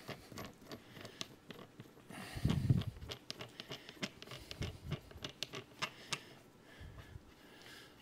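Irregular metal clicks and ticks as a locking nut is threaded down the shaft of a vintage Snap-On static wheel balancer against a cone spacer, with a few dull handling thumps, the loudest about two and a half seconds in.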